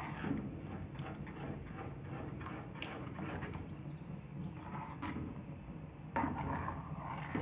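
Metal spoon stirring a thick corn pie mixture in a metal pot, with irregular scraping and light knocks against the pot, a louder scrape about six seconds in.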